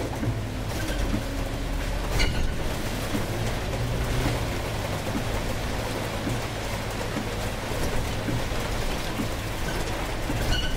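Heavy rain and tyre hiss on the wet road, heard from inside the cab of a Scania City Wide bus, with the engine's low steady hum underneath. A single sharp click about two seconds in.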